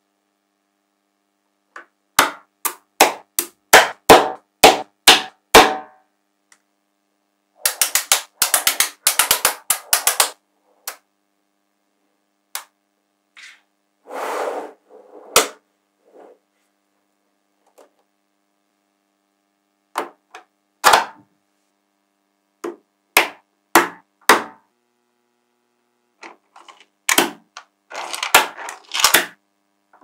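Small magnetic balls clicking together as hands snap sheets and blocks of them onto a build. The clicks come in scattered bursts: a run of separate clicks, a dense rattle about eight seconds in, a short scraping rattle midway, then more bursts near the end.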